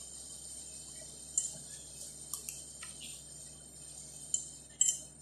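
Eating utensils lightly clinking against a plate: a handful of scattered small clicks, with a sharper pair near the end.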